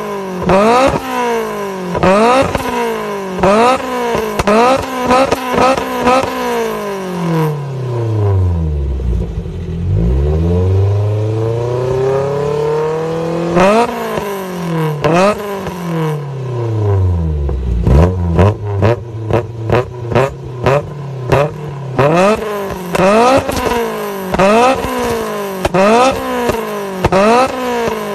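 Toyota AE86's exhaust as its engine is free-revved while parked, blipped in quick repeated stabs. In the middle the revs fall away slowly and climb back, followed by a rapid run of sharp cracks, and then the quick blips resume.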